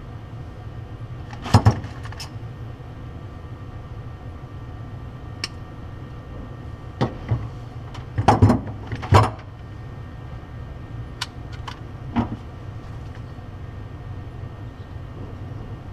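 Scattered sharp clicks and small metallic clatters, about ten in all, from hand tools and wire terminals being handled during wiring work, over a steady low hum.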